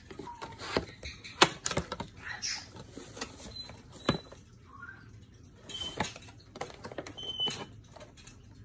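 Cardboard box and plastic blister packaging handled close to the microphone: an irregular run of clicks, knocks and crinkles as the box is opened and a figure pack is pulled out.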